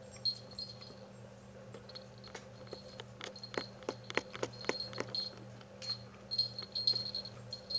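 Small jingle bell on a springy toy tinkling in short bursts as a kitten paws and bites at it. About two to five seconds in comes a quick run of light clicks and taps.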